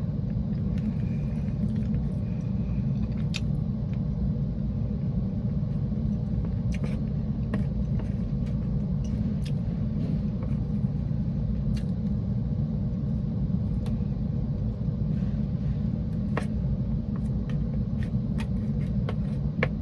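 Steady low rumble inside a car's cabin, with scattered small clicks and taps from eating.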